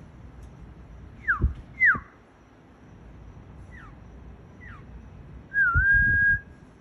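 Mockingbird singing clear whistled phrases: two loud downward-slurred whistles about a second in, two fainter ones after, then a longer held whistle that dips and levels off near the end.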